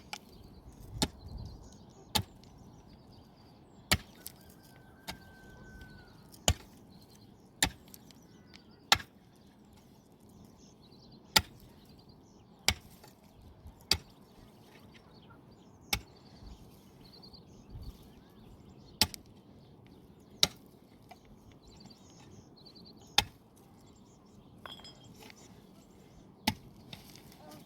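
Wood being chopped: single sharp blows at an uneven pace, about one every one and a half to two seconds.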